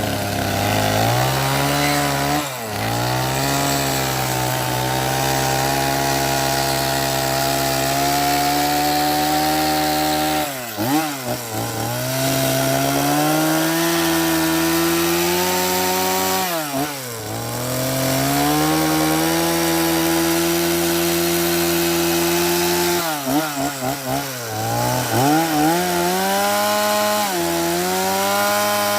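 Stihl chainsaw carving wood, held at high revs and let off the throttle briefly about five times, each time dropping in pitch before revving back up.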